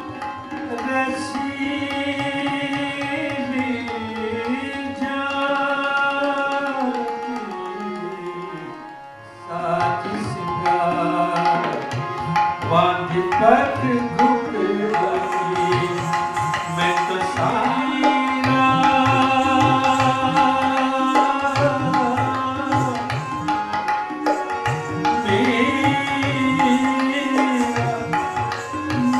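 Indian classical Kathak accompaniment: tabla under a sustained melody over a steady drone. The music fades briefly about nine seconds in, then returns with busier tabla strokes under the melody.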